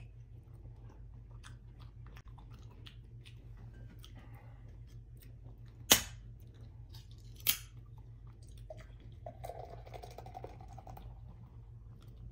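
Chewing with small mouth clicks, then the pull-tab of a can of carbonated Barbican malt drink snapping open with a sharp crack about six seconds in, followed by a smaller click. Near the end the fizzy drink is poured into a glass and foams up.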